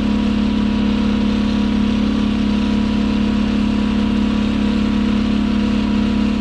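Champion inverter generators running steadily with an even hum, powering an electric heater.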